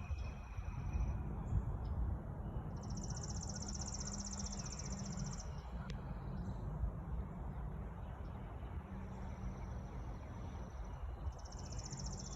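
High-pitched insect trills, each lasting about two to three seconds, one starting about three seconds in and another near the end, over a steady low rumble.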